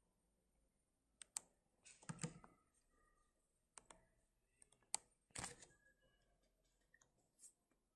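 Faint, irregular clicks and taps of computer keys, a dozen or so, the loudest around two and five seconds in.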